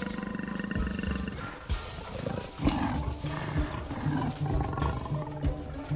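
Leopards growling and snarling: a long, pulsing growl in the first second and a half, then shorter, sharper snarls.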